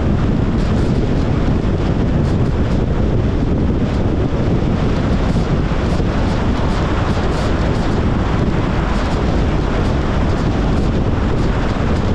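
Steady road and wind noise from a moving Tesla Model Y Long Range: an even rumble of tyres and air with no engine note, the car being fully electric.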